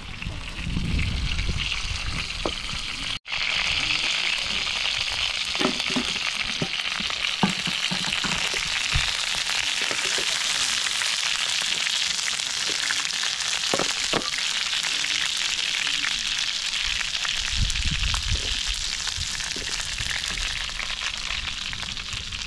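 Chicken pieces sizzling in hot oil in a frying pan over a wood fire: a steady hiss that starts after a short break about three seconds in, with a few light knocks.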